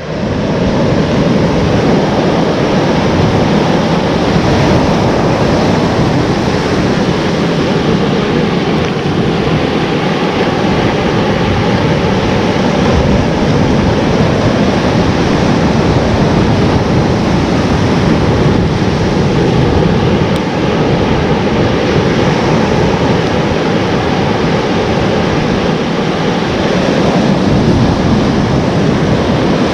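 Surf breaking and washing up a sandy beach in a steady wash of noise, with wind rumbling on the microphone.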